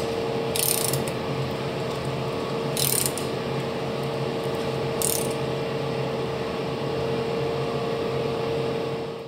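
Mechanical ratcheting and gear noise from an air-cooled Porsche flat-six being turned over by hand at its crankshaft pulley, over a steady hum. Three short hissing bursts come about two seconds apart.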